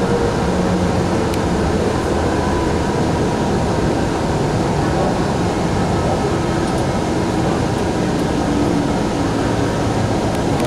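Steady running noise heard inside a Link light rail car travelling between stations: the rumble of wheels on the rails mixed with the hum of the car's ventilation.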